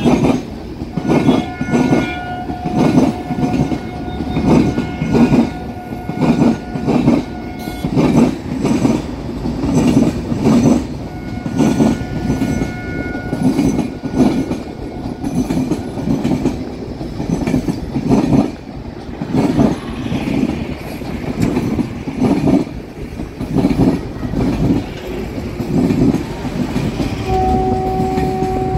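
Netaji Superfast Express train running: a steady rhythmic clatter of wheels over rail joints, with long horn blasts about a second in and again around eleven seconds, and a lower horn sounding near the end.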